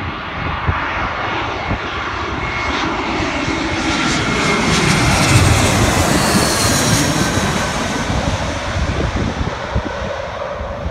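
Twin-engine jet airliner on final approach passing low overhead. The jet engine noise builds to a peak about halfway through as it flies over, with a high whine that falls in pitch, then eases off as it moves away.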